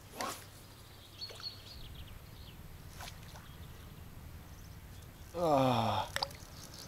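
A man's drawn-out wordless groan, falling in pitch, about five seconds in, over a quiet background with a few faint clicks.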